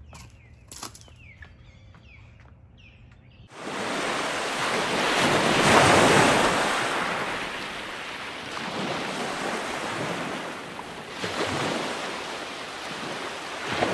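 A few bird chirps, then from about three and a half seconds in a loud wash of ocean surf that surges and eases, loudest about six seconds in.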